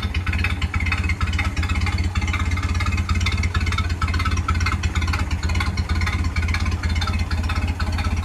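Ford Model A four-cylinder flathead engine idling, an even, rapid low pulse from the exhaust.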